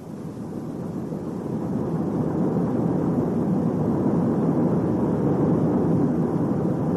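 Low, steady rumbling noise that swells up over the first two seconds and then holds.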